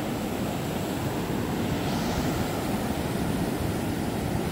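Breaking ocean surf with wind buffeting the microphone, a steady low rushing noise. A brief higher hiss rises about two seconds in.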